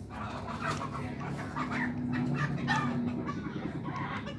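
Chickens clucking in a series of short calls over a steady low hum.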